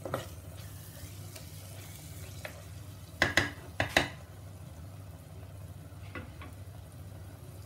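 Spatula stirring thick onion-tomato masala with ground spices as it fries in a handi, with a soft sizzle, at the stage of roasting the masala. A few sharp scrapes and knocks of the spatula against the pot come in a quick cluster about three to four seconds in, over a steady low hum.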